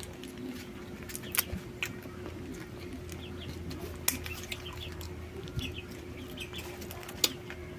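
Eating sounds: scattered sharp clicks and cracks of a small crab's shell being chewed, with short chirps of birds or chickens in the background.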